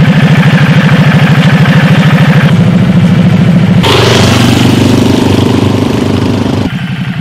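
A motorcycle engine running at idle with a steady, rapid pulse. From about four seconds in a broad hiss joins it and cuts off suddenly near the end, where the engine sound drops in level.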